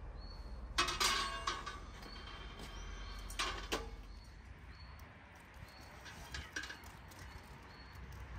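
Metal clattering and scraping as a foil-covered metal baking tray is set down onto a charcoal grill, in two bursts about a second in and about three and a half seconds in, with a few lighter metal knocks later. Faint bird chirps sound throughout.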